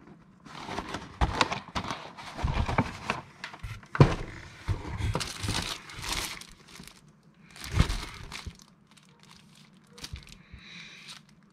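Packaging being crumpled and torn as a parcel is unboxed, in irregular rustling bursts, with two louder knocks about four and eight seconds in.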